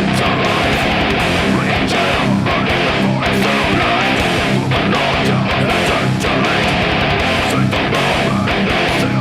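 Heavy distorted electric guitar playing a groove-metal riff over a full band track with drums, loud and continuous.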